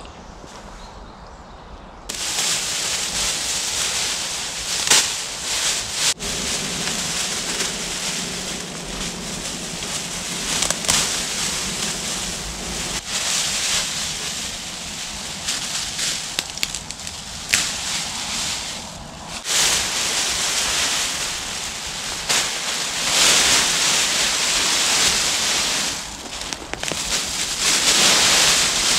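Mylar space blankets crinkling and rustling loudly as they are pulled down and bunched up by hand, in irregular crackly surges. It starts suddenly about two seconds in.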